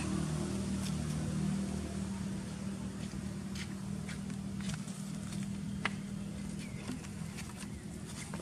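A steady low engine hum from a motor running in the background, easing off in the second half, with scattered sharp clicks over it.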